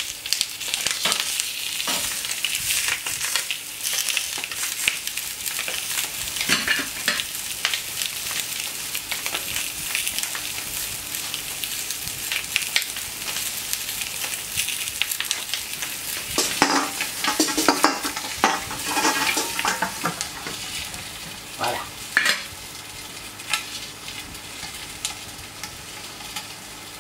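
Spatchcocked poussins sizzling as they sear on a hot hard-chrome steel plancha, with clicks and scrapes of metal tongs and spatula. A busier stretch of louder handling noises comes about two-thirds of the way in, and the sizzle grows quieter in the last few seconds.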